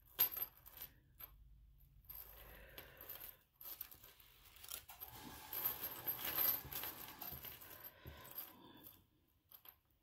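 Small metal jewellery findings (silver split rings, lobster clasps and chain) clinking and jingling as they are handled. A few light clicks come first, and the busiest jingling runs from about five to eight and a half seconds in.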